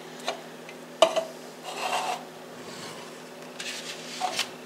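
A spoon scraping and knocking against a container as the last of the diced tomatoes are emptied into a crock pot. There is a sharp knock about a second in, a short scrape around two seconds, and another knock near the end.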